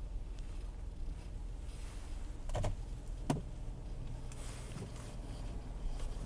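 Steady low rumble of a car heard from inside its cabin as it creeps along in slow traffic, with windshield wipers swishing across the wet glass and two short knocks a little over halfway through.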